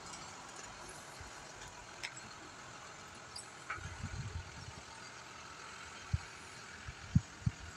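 Steady distant hum of vehicle or engine noise, with a few short clicks and low thuds on the microphone, clustered about four seconds in and again near the end.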